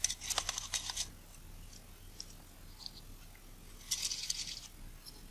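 Small, sharp clicks and light scraping of a precision screwdriver and small metal parts worked on a Nikkor 28mm f/2.8D lens while its three small screws are taken out. The sounds come in two short bursts, one in the first second and another about four seconds in.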